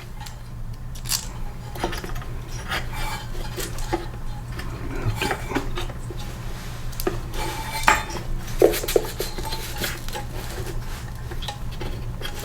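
Metal hand tools and loose engine parts clinking and scraping on a small Briggs & Stratton mower engine while the ignition coil bolts are being removed. The clicks come irregularly, over a steady low hum.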